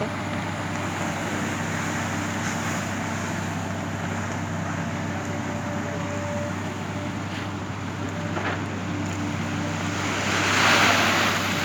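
Excavator engine running steadily, with a louder rushing swell near the end.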